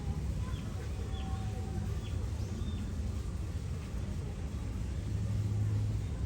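Outdoor ambience with birds giving short chirps several times in the first half, over a steady low hum that swells a little near the end.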